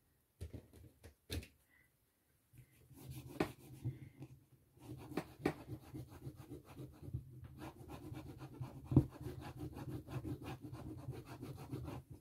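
Caran d'Ache wax pastel scribbling on paper in quick back-and-forth strokes as colour is laid on. There are a few light taps first, then a steady, fast scratching from about two and a half seconds in.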